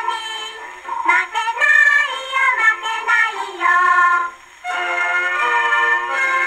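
A 1952 Victor 78 rpm record of a children's song played on a Victrola VV-50 acoustic gramophone with a soft-tone steel needle. A child singer and children's choir sing over a small orchestra, in a thin sound with no bass. The voices break off briefly about four and a half seconds in, and held instrumental notes follow.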